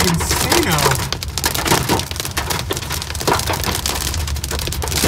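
Hail and rain pelting a car's windshield and roof from inside the moving car: a dense, steady clatter of ice hitting metal and glass over the low rumble of the road.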